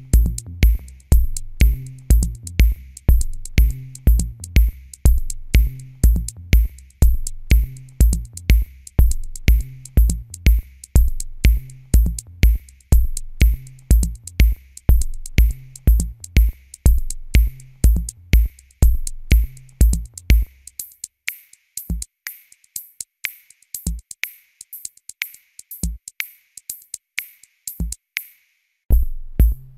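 Background electronic music with a steady drum-machine beat, about two beats a second. The bass drum drops out for several seconds near the end, leaving only the hi-hat ticks with a lone kick every couple of seconds, then comes back.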